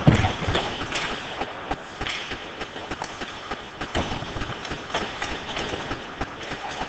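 Ice hockey board battle: a heavy thump of a player being driven into the boards and glass right at the start, then scattered clacks and knocks of sticks, skates and bodies against the boards and ice as the players fight for the puck.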